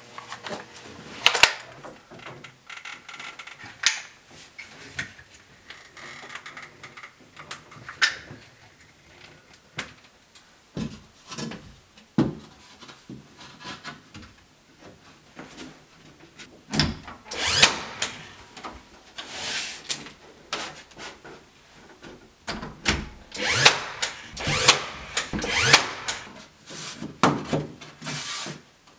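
Woodworking sounds: sharp knocks and clatter of boards being handled, mixed with several short bursts of a cordless drill driving into a cedar board on the wall. The busiest, longest bursts come in the second half.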